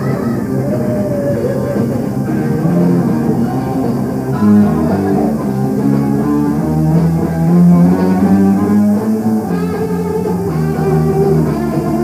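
Hard rock band playing live: electric guitar, bass and drums, with long held notes and a change in the bass line about four seconds in.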